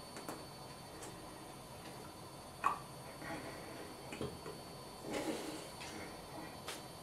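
Faint, scattered clicks and soft rustling from a person signing in sign language as hands and sleeves move and touch. There is one sharper click about two and a half seconds in and a brief soft rustle about five seconds in, over a faint steady hiss.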